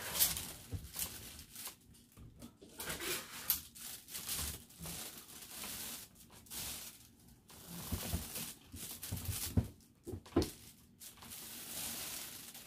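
Clothes being handled and moved: fabric rustling and crinkling in irregular bursts, with scattered sharp clicks.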